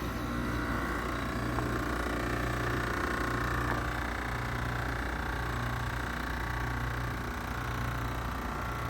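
Outdoor unit of a 2025 Carrier Comfort heat pump, its compressor and fan running steadily: a continuous mechanical hum with a low throb about once a second.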